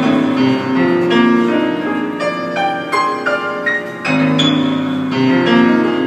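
Grand piano played live: a steady run of struck chords with the notes left ringing between them.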